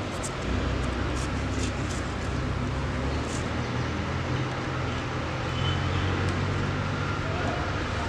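A nearby engine running steadily with a low hum that shifts slightly a couple of times, and a few faint clicks of plastic wire connectors being handled.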